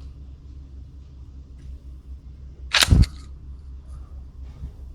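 A .177 air rifle firing a dart, one sharp crack followed almost at once by a second knock, about three seconds in.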